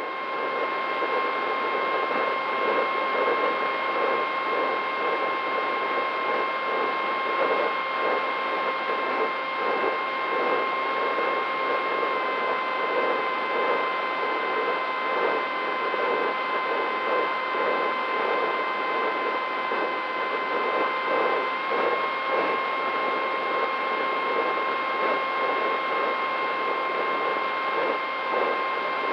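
DYS Fire 2206 brushless motor and propeller of an FPV flying wing in flight, heard from the onboard camera: a steady high whine over rushing wind noise, the pitch shifting slightly a couple of times with throttle.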